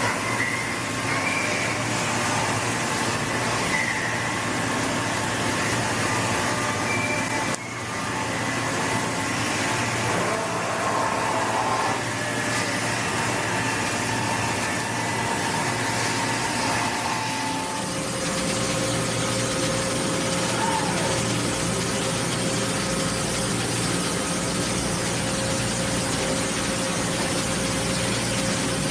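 Kitamura Bridgecenter-8G CNC bridge mill running: steady machine noise with several held whining tones. About 18 seconds in the sound changes, with a low hum and a steady mid-pitched tone coming in.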